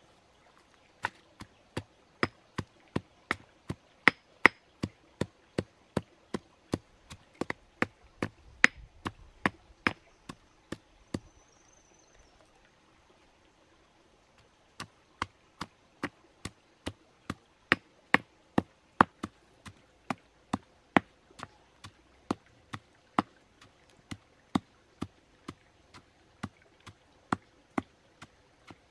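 Pestle pounding lemongrass and turmeric into a paste in a stone mortar: sharp, regular thuds at about two to three strokes a second. The strokes stop for about three seconds near the middle, then start again.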